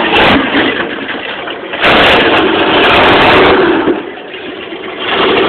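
1978 Ford F-150 pickup's engine revving hard while driving off-road, loud and distorted, surging about two seconds in, easing off around the four-second mark, then rising again near the end.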